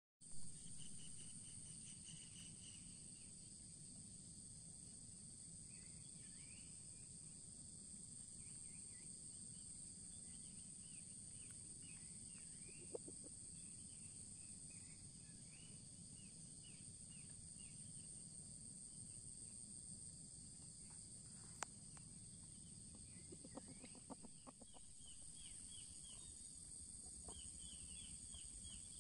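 Faint, steady, high-pitched drone of insects, with small birds chirping again and again in short falling notes. A few faint clicks are heard.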